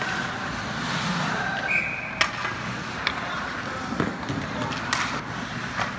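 Ice hockey play: skates scraping on the ice and several sharp cracks of stick and puck, the loudest about two seconds in, over the voices of spectators.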